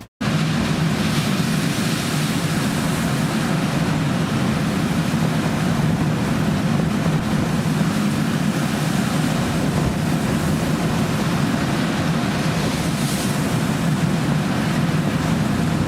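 Steady rush of wind and sea aboard a ship in a storm, with a low drone underneath.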